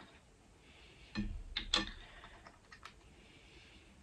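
A few light clicks and knocks about a second in, then fainter ticks, like small objects being handled on a table.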